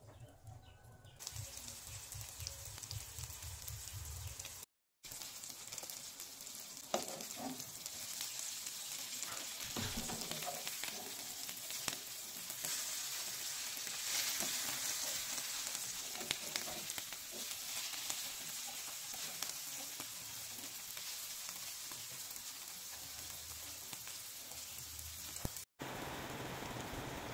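Cabbage-and-egg patties (tortang repolyo) sizzling in hot oil in a frying pan, with a few sharp scrapes of a metal spoon against the pan. In the last second or two, after a cut, rain falls steadily.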